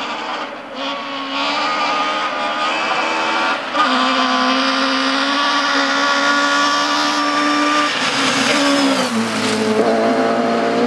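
Rally car engine held at high revs as the car approaches flat out, with a gear change about four seconds in. The engine note falls away near the end as the car comes past.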